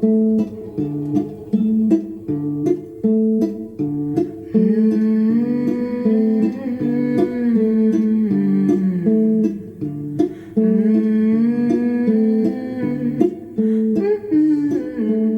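Music: a guitar picking a repeating pattern of notes, with a wordless vocal line coming in about four and a half seconds in and again around ten and a half seconds.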